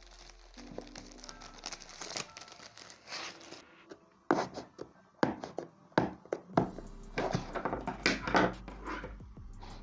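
Product packaging being handled and opened: crinkling and tearing of wrapping with a few knocks against the box, coming in quick sharp crackles from about four seconds in, over quiet background music.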